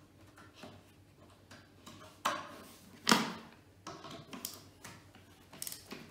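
Hand screwdriver tightening a screw into a chipboard flat-pack drawer panel, with scattered clicks and knocks from the tool and panel. The loudest knock comes about three seconds in, followed by several lighter ticks.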